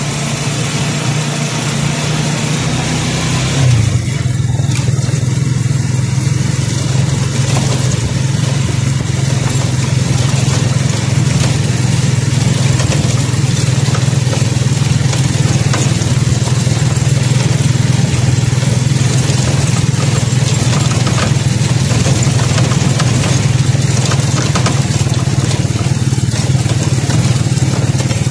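Motorcycle engine running steadily while riding over a rough gravel road, with a steady rushing noise over it; the engine note picks up slightly about four seconds in.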